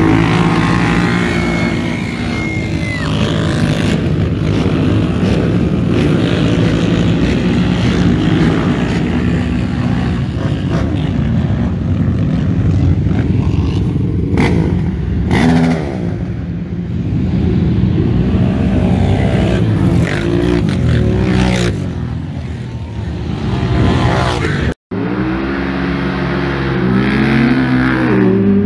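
Many ATV engines revving hard as a row of quads launches off the start line, then a field of quad engines running and revving together. After a sudden break near the end, one side-by-side UTV's engine revs up and down as it climbs a hill.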